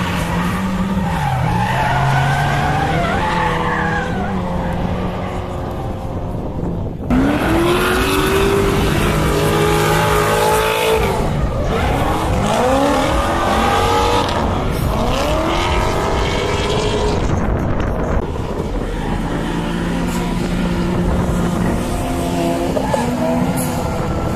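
Drift cars sliding through a corner, engines revving hard with the pitch sweeping up and falling back again and again as the throttle is worked, over tyres screeching. The sound jumps abruptly a few times, as between separate runs.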